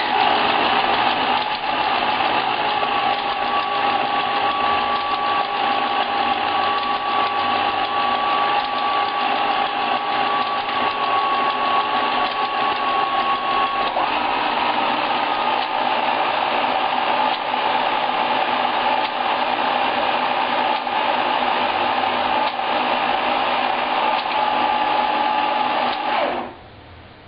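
AN/ART-13 transmitter's Autotune motor and gear train running steadily as it drives the tuning to a stored channel, with a whine that shifts in pitch about halfway through and cuts off sharply near the end when the tuning is reached.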